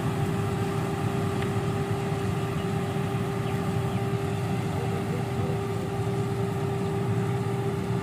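Fiatagri 3650 combine harvester running steadily while cutting and threshing rice: an even engine and machinery drone with a constant whine held at one pitch.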